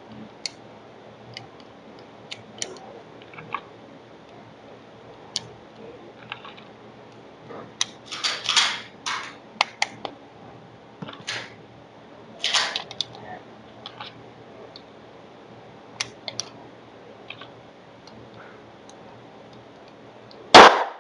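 Scattered small mechanical clicks and a few louder rattling bursts of a pistol and its parts being handled. One very loud, sudden bang comes near the end.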